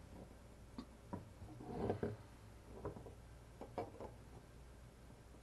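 Faint clicks and light metal ticks from a helping-hands soldering stand's jointed arms and alligator clips being worked by hand and with pliers, its joints set tight for shipping and being loosened. About seven ticks in all, with a short busier cluster a little under two seconds in.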